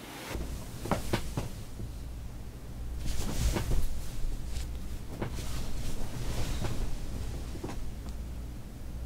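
Bedding rustling as a man sits up in bed and throws back a comforter, with a few sharp knocks about a second in and the loudest rustles around the middle, over a low steady hum.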